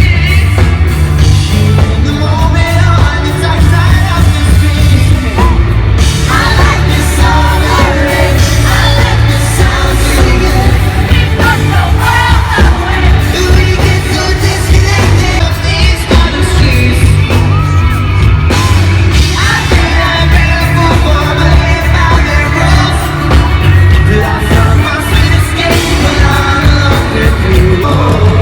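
Loud music with singing and yelling, over a heavy, steady bass.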